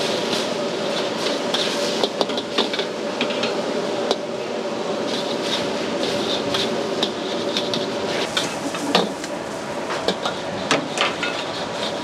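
Steel ladle and wok spatula clanking and scraping against a steel wok in irregular knocks as a soupy egg sauce is stirred over a charcoal stove, with a steady roar and hum underneath.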